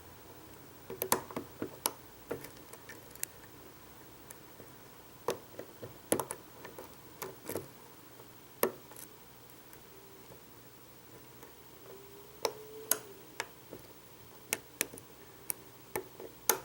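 Irregular small metallic clicks and ticks of a short hook pick working the pin stack inside a Vachette V5 lock under tension from a pry-bar wrench, coming in loose clusters with pauses between. This is single-pin picking, with the pins setting and repeatedly oversetting.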